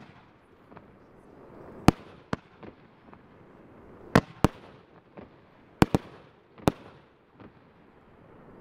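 A 19-shot consumer fireworks cake firing: loud sharp bangs of aerial shells at irregular intervals, several in quick pairs, with fainter pops and a low crackle between them. The bangs stop near the end.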